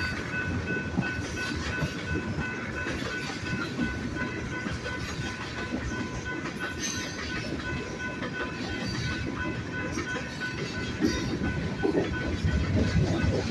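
Freight train passing at track side, wheels clattering rhythmically over the rail joints with a steady rumble, over an evenly pulsing high ringing tone.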